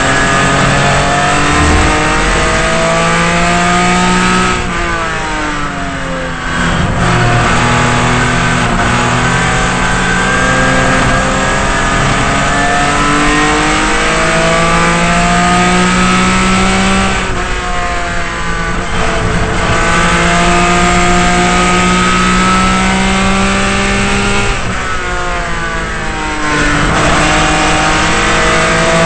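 Racing Datsun 240Z's straight-six engine heard from inside the cockpit under hard acceleration. Its pitch climbs through the gears with stepped drops at the upshifts, and three times it falls away at length as the car slows, then climbs again.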